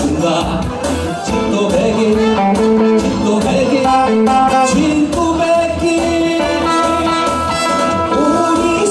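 Live Korean trot music: a male singer performing with a band of electric guitar, saxophone, keyboard and drums. Long held notes come in about halfway through.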